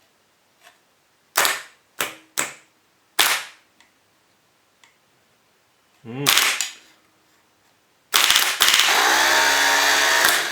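Starter motor from a Volvo EC14B/EC15B mini excavator on a bench test: several sharp clacks in the first few seconds, then the motor spins freely for about two and a half seconds near the end and stops. It runs a bit slow, which the owner puts down to brushes and a commutator needing cleaning.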